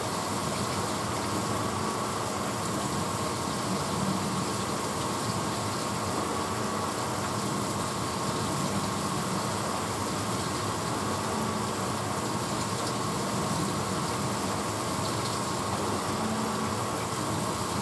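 1986 Hotpoint Potwasher dishwasher running mid-cycle: a steady rushing hum with a faint constant whine, unchanged throughout.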